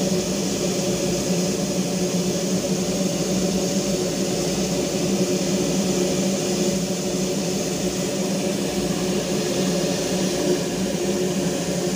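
Darjeeling Himalayan Railway B-class saddle-tank steam locomotive standing with steam up, giving a steady hiss of escaping steam over a low, even hum.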